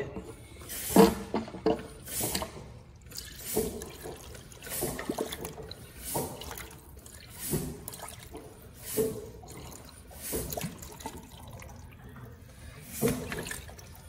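Water heater tank draining through a garden hose into a plastic bin, the water coming out in sputtering surges about every second and a half as air pressure pushed into the tank forces it out.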